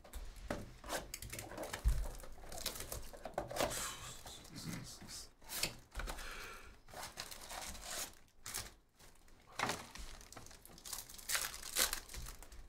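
Plastic wrapping crinkling and tearing in irregular bursts as a sealed box of trading cards and then a card pack are ripped open by hand.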